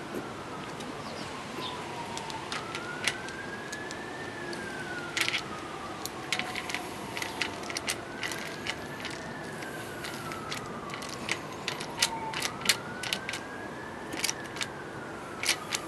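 An emergency-vehicle siren wailing, its pitch slowly rising and falling about every five seconds, with scattered sharp clicks and taps from metal parts being handled.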